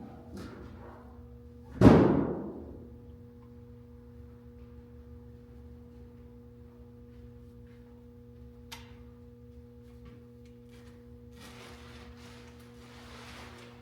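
Metal stand parts being handled: a loud metallic clank about two seconds in, then a steady pure ring that carries on for many seconds. A faint click and soft handling rustle come near the end.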